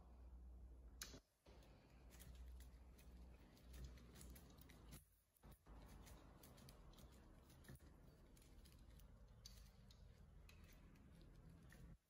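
Faint clicks and light metal-on-metal ticking as the wire stripper's top adjustment screw is turned by hand, over a low rumble that drops out twice.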